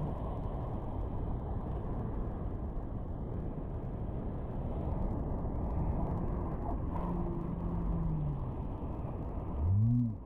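Whitewater rapid: river water rushing and crashing over and around a packraft, a dense steady low rush. Near the end a short, louder pitched sound rises and falls.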